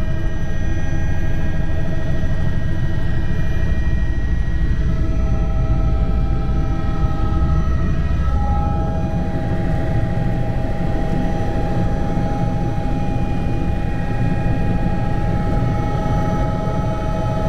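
Helicopter cabin noise in flight: a loud, steady rotor and engine rumble with steady whining tones above it, which step up in pitch about eight seconds in.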